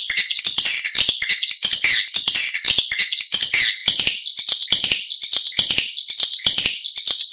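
Swiftlet call recording: high, buzzy chirping twitters of swiftlets in quick succession, the lure call played to draw swiftlets to a nesting house.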